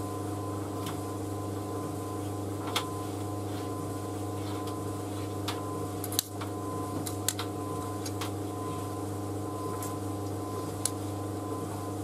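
White Knight C38AW compact reversing tumble dryer running on its cool-down stage: a steady motor-and-drum hum with a faint whine, and a few light clicks scattered through it as the drum turns the load.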